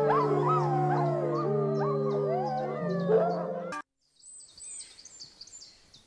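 Young grey wolves howling together in overlapping rising and falling calls: the defensive howl answering a rival pack. A low steady music drone runs beneath, and both cut off suddenly just before four seconds in, leaving faint birdsong.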